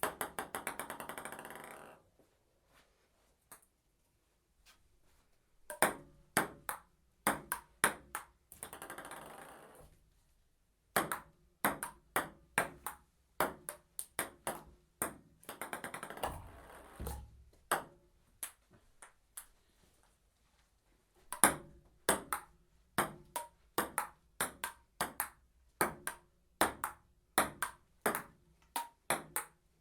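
Table tennis ball rallies: sharp clicks of the ball hit by paddles and bouncing on the table, about two a second, broken by short pauses. Three times, a rapid run of bounces dies away as a ball settles on the table.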